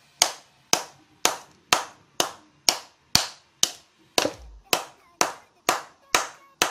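Sharp clap-like hits repeating at an even pace, about two a second, each fading quickly: the clap beat of a backing music track.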